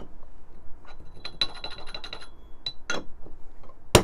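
Light metallic clinks and taps of a dosing funnel on a stainless espresso portafilter, with a faint ringing among a run of small clicks, and one sharp click near the end as the funnel is handled.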